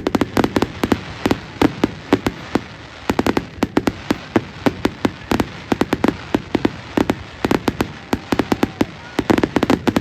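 Fireworks display: a rapid barrage of sharp bangs and crackles, several a second, without a break.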